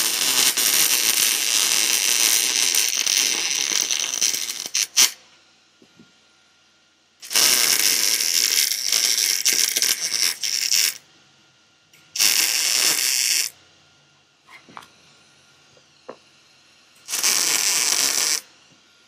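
MIG (wire-feed) welder arc crackling and sizzling on steel sheet metal in four separate beads. The first runs about five seconds and the second about four; two short tack-length bursts follow near the middle and near the end.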